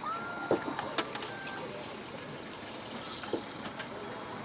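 A few scattered light clicks and knocks from work on a car door lock, over steady background noise.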